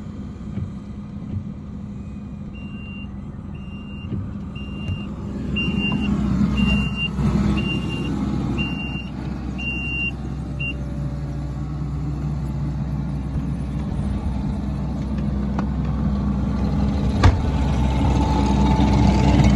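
A vehicle engine runs steadily while a single-pitched warning beeper sounds about nine times, roughly once a second, stopping about halfway through. A single sharp knock comes later.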